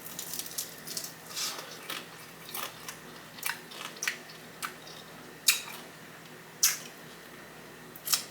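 Biting into and chewing a crispy fried hot honey chicken wing: a string of sharp crunches and mouth clicks, the loudest about five and a half, six and a half and eight seconds in.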